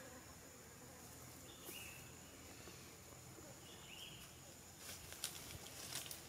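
Quiet outdoor ambience with a faint steady high insect drone. Two short high chirps falling in pitch come about two and four seconds in. A cluster of light crackles, like dry leaf litter, follows about five seconds in.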